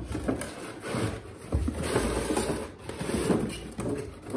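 Cardboard packaging scraping and rustling unevenly, with a few light knocks, as an inner cardboard tray is slid out of a toy car's box.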